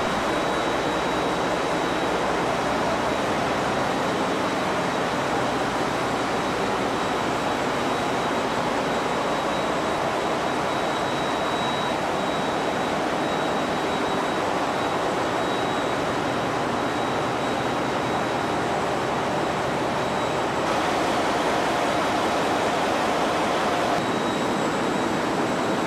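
Steady, loud machinery noise of a fishing vessel's engine room, where the 2000 hp Deutz diesel main engine runs along with cooling fans and pumps, with a thin, steady high whine over it. The noise gets a little louder about three-quarters of the way in.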